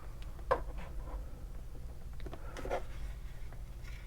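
Faint handling noises from a power cable and calipers being worked by hand: a few soft clicks and rubs, about half a second in and again near the three-second mark, over a low steady hum.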